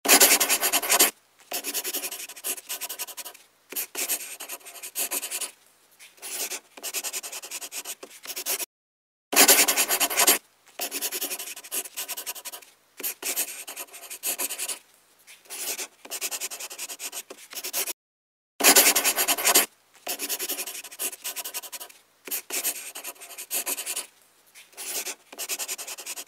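Pen strokes scratching on paper, a writing sound effect of short strokes with brief pauses between them. It runs three times over, each run opening with a louder scratch and broken off by a moment of dead silence.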